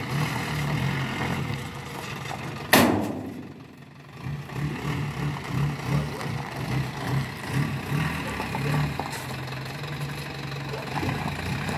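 Engine of a pickup dump truck idling with a steady, pulsing low hum while its dump bed is tipped. About three seconds in there is a single loud bang with a short ring.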